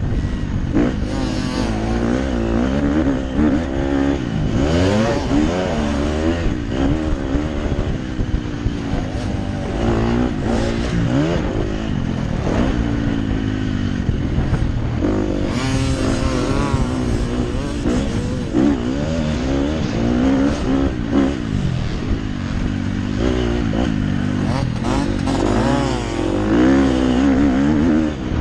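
Motocross bike engine heard from on board, revving up and dropping back again and again as the rider accelerates, shifts and rolls off for corners.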